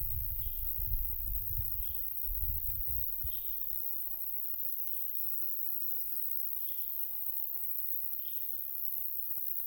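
Wind gusting on the microphone as a low rumble for the first three seconds, then dying away. Throughout, a single short high chirp repeats about every second and a half.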